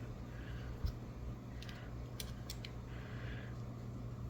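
Small metal tools scraping and clicking against a lock cylinder as it is being forced apart, with a few sharp clicks over a steady low hum.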